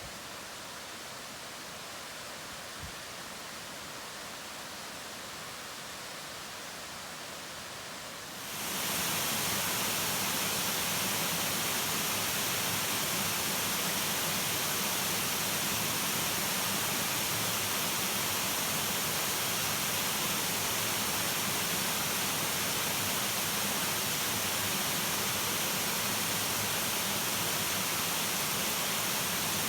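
Steady rushing of flowing water from a mountain stream. About eight seconds in it cuts to a louder, fuller, steady rush, as of a waterfall.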